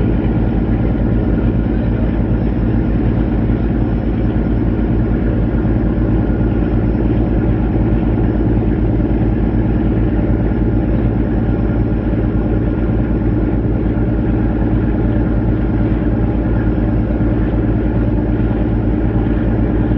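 Diesel engines of a river passenger launch running at an even, unbroken drone, with a deep pulsing hum underneath.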